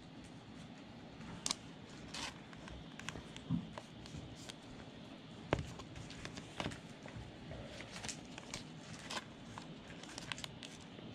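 Faint, scattered light clicks and crinkles of trading cards being handled and slid into plastic sleeves.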